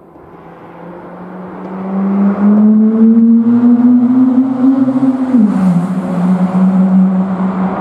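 Mazda RX-8's two-rotor rotary engine driving past inside a road tunnel. It grows louder as it comes up, its note rising slightly, then drops in pitch as it passes about five seconds in and carries on at a steady, lower note as it pulls away.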